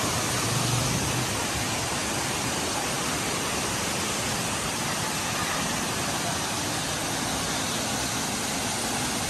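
Steady, even rush of a waterfall and the rocky rapids below it, the stream swollen by several days of rain.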